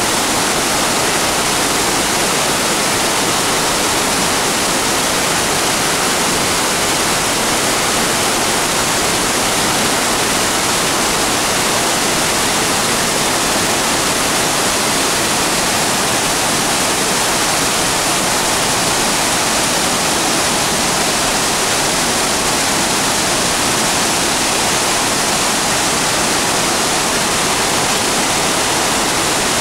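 Urami Falls, a large waterfall in full spate, plunging steadily with heavy water flow: a loud, unbroken rush of falling water.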